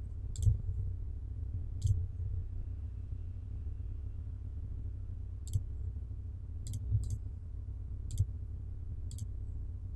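Computer mouse clicks, about seven scattered over the stretch, two of them close together near the middle, over a steady low hum.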